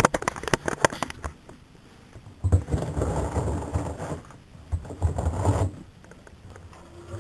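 Neff front-loading washing machine: a quick run of clicks and rattles, then a low motor hum for about three seconds that stops.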